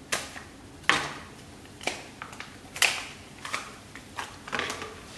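Plastic ham packet being slit open with a knife and handled: a series of sharp crinkles and clicks, roughly one a second, as the wrapping is cut and the slices are pulled out.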